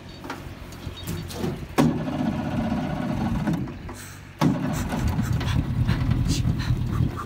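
Mercury 50 outboard motor running with a steady engine note. It comes in abruptly about two seconds in, drops away briefly around four seconds, then cuts back in loud.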